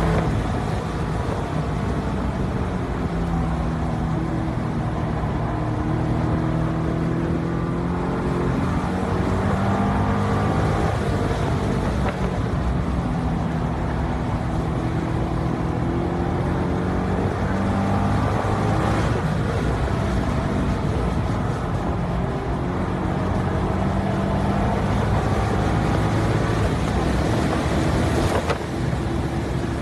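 2012 Corvette Grand Sport's 6.2-litre LS3 V8 driven hard on a race track, its revs rising and falling again and again as it accelerates, shifts and slows.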